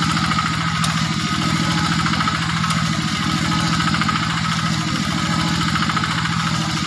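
Hand tractor engine running steadily with an even, rapid beat.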